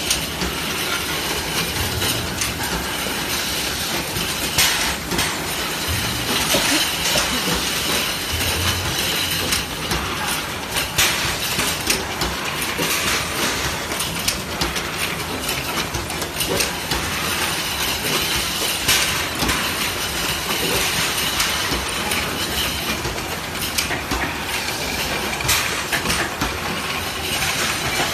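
Automatic paint-can filling line running: a steady mechanical din with frequent irregular clicks and clanks of tin cans knocking together on the conveyor and rotary table.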